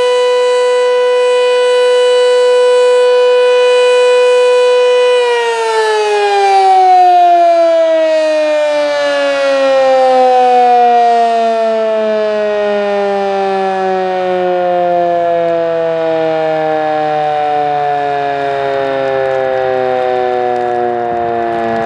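Sentry 7V8-B outdoor warning siren sounding a steady alert tone, then, about five seconds in, winding down with its pitch falling slowly and its loudness swelling and fading as it sweeps.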